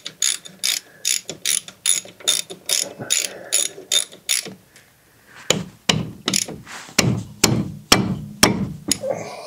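Socket ratchet wrench clicking in steady strokes, about three a second, as it tightens a brake caliper bolt. After a brief pause about halfway through, the strokes come louder and heavier.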